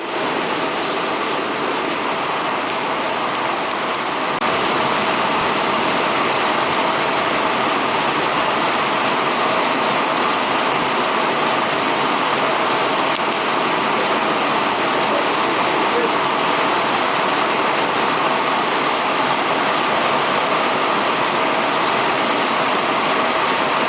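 Torrential rain pouring down in a dense, steady hiss that gets a little louder about four seconds in.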